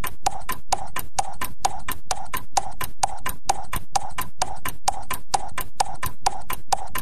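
Background music: a steady beat of sharp percussive hits, about four a second, with a short mid-pitched tone on many of the hits.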